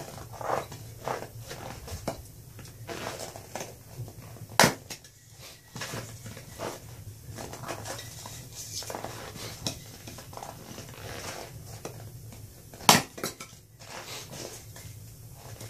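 Axe splitting firewood: two sharp strikes, one about four and a half seconds in and a louder one about thirteen seconds in. Between them, split chunks of wood knock and clatter as they are picked up and set on the block.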